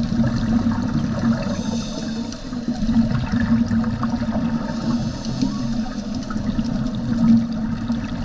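Underwater ambience recorded with the camera below the surface: a steady, muffled wash of water with faint scattered crackling clicks.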